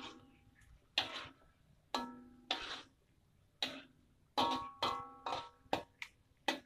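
Metal spatula knocking and scraping against a metal wok while stirring pieces of fish in sauce. About ten sharp clanks come at irregular intervals, each ringing briefly.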